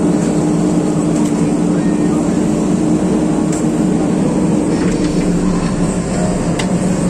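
JCB excavator's engine running steadily under load, a constant low hum, with a couple of faint clicks.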